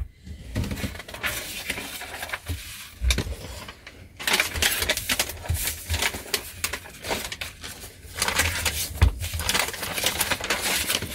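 Paper handling: rustling with many quick clicks and taps as letters are folded and stuck shut.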